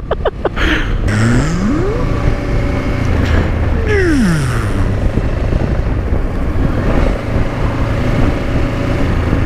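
Honda Transalp 700's V-twin engine under way, heard from the rider's seat over steady wind and road noise: the revs climb about a second in, then fall away around four seconds in as the bike slows, and it settles to an even cruise.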